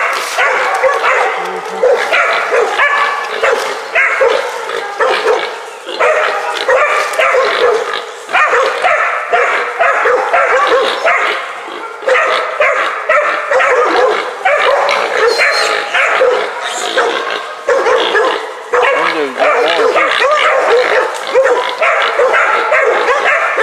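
Several young hog dogs baying a wild hog they hold at bay: a continuous chorus of overlapping barks, rising and falling in quick surges without a pause.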